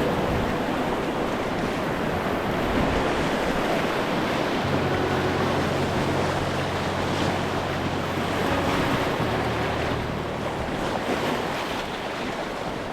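River water rushing steadily around a kayak, with wind buffeting the microphone. Low held notes join in underneath about five seconds in.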